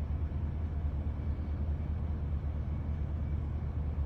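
Steady low drone of a vehicle engine running, a constant hum under an even rumble.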